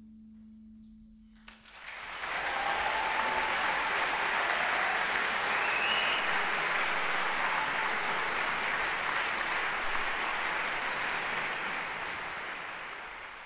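The last held chord of the band rings out and fades, then a concert audience bursts into sustained applause just under two seconds in, easing off slightly near the end.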